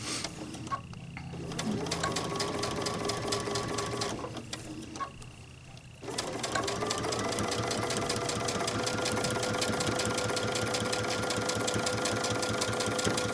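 Sewing machine stitching in the ditch along a binding on cork fabric, using an edge-joining foot, with a fast, even run of needle strokes. It stops briefly about four seconds in, then starts again, winds up to speed and runs steadily until near the end.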